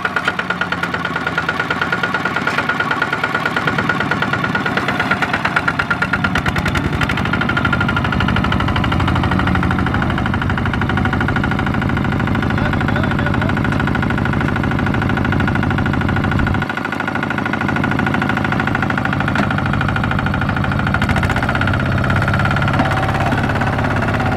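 Single-cylinder diesel engine of a two-wheel walking tractor running steadily under load as it hauls a trailer of rice sacks through muddy stubble, dipping briefly in level about two-thirds of the way through.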